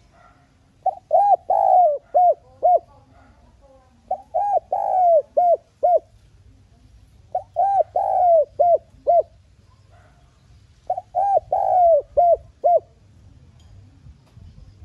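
Spotted dove singing its cooing song: four phrases of about five coos each, a couple of seconds apart.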